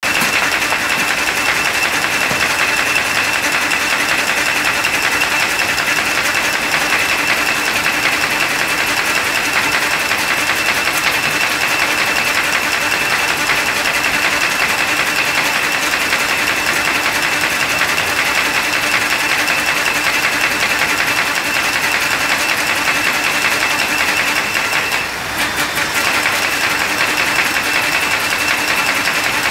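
Paper folding machine running with a steady, fast mechanical clatter, dipping briefly about 25 seconds in and then carrying on.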